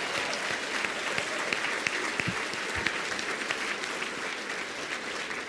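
Large audience applauding: a steady patter of many hands clapping that eases slightly near the end.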